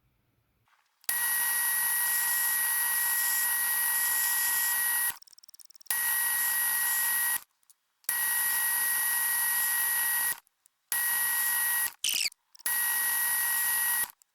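Metal lathe running with a steady high whine over a hiss, starting about a second in, then stopping abruptly and restarting several times.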